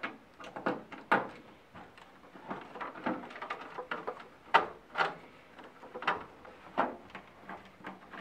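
Screwdriver work on the screws of a CRT monitor's shell, with screws set down one by one on a wooden desk: irregular small clicks and clacks, with a few sharper knocks.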